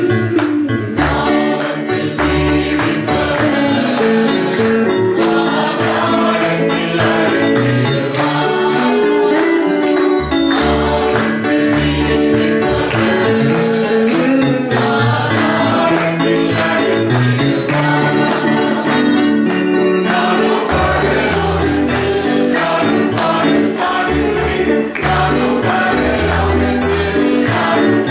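Live Tamil Christian worship song: several voices singing together over instrumental backing with a bass line, and a steady beat of hand claps and jingling percussion.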